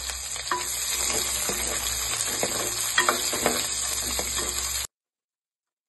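Shallots sizzling as they fry in hot coconut oil in a clay pot while being stirred, with scattered sharp clicks. The sound cuts off suddenly near the end.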